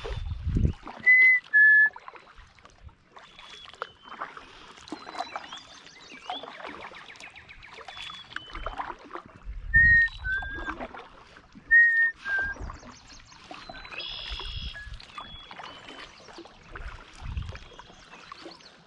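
A person whistling a short two-note call, a clear note and then one a little lower, three times: once near the start and twice more around the middle. Faint high birdsong and the low splashes of kayak paddle strokes sound between the whistles.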